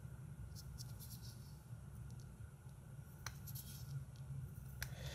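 Faint handling sounds of fingers picking and peeling flexible Vinamold moulding compound off a scooter cylinder, with two small ticks, one past the middle and one near the end, over a low steady hum.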